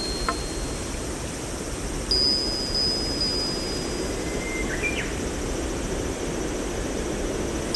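A wind chime struck once about two seconds in, a single clear high tone that rings and fades over about a second and a half. Under it runs a steady low rushing background noise.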